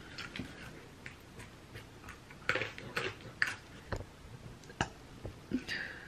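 Irregular sharp clicks and crackly crunches close to the microphone, a quick cluster of them about halfway through and a couple of single sharp clicks after.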